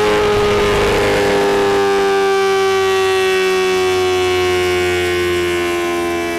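Motorcycle engine running at high revs on a dynamometer, its pitch falling slowly and evenly as the revs drop.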